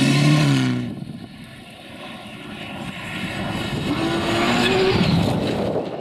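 Rally car engine at high revs passing close on gravel, cutting off abruptly about a second in. Another rally car's engine then rises in pitch and grows louder as it approaches at speed, mixed with tyre and gravel noise.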